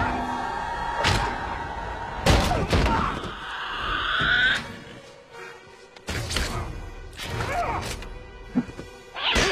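Action-film fight soundtrack: music with heavy thuds and impacts, about four in all, and a rising swish in the middle.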